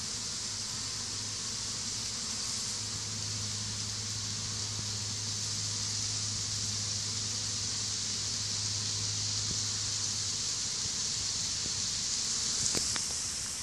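Honey bees buzzing around a stump, a steady low hum under an even high hiss, with a few sharp clicks near the end.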